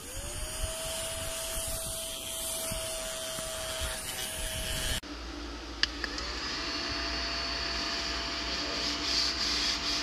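Mini desk vacuum cleaner switched on, its small motor spinning up to a steady whine with an airy hiss of suction. It cuts out about halfway through, and after a click it spins up to the same steady whine again.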